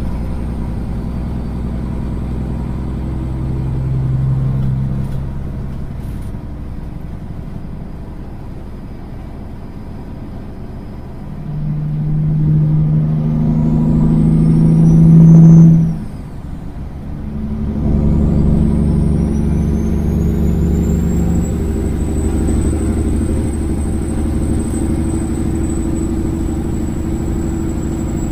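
Kenworth semi truck's straight-piped diesel engine pulling hard as the truck accelerates onto a highway. Its pitch climbs to the loudest point about fifteen seconds in, then drops off suddenly for a gear change and pulls again, with a high whistle that rises and then holds steady.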